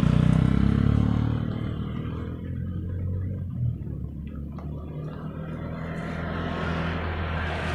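A motor vehicle's engine passing, loud at first and fading over the first two seconds, then a steady low engine hum.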